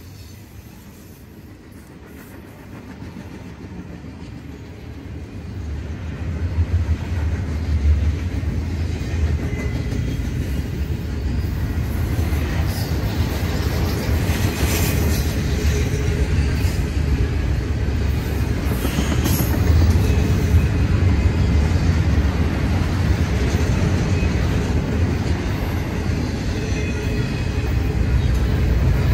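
Double-stack container well cars of an intermodal freight train rolling past, a steady rumble of wheels on rail that grows louder about six seconds in. Twice near the middle come brief high-pitched squeals.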